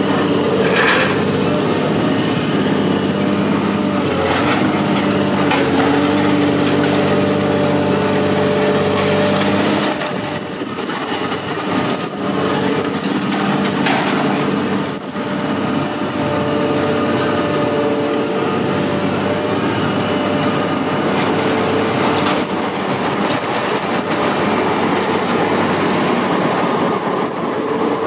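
A heavy diesel engine runs steadily, its pitch shifting about ten seconds in, over continuous rattling and clanking of metal.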